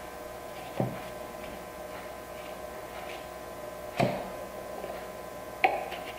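A few sharp, light knocks of a marking knife and wood against the bench and dovetail jig, about a second in, at about four seconds and twice near the end, over a faint steady hum.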